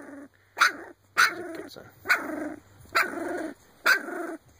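Shar Pei puppy, about 19 days old, barking: five short, rough barks, about one a second.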